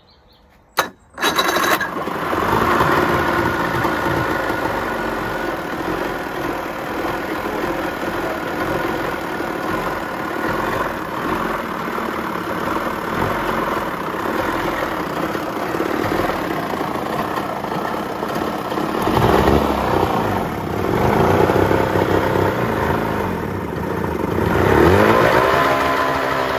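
Johnson 60 two-stroke outboard motor, cowling off and lower unit in a barrel of water, starting about a second in and running steadily, then revved up and down a few times near the end.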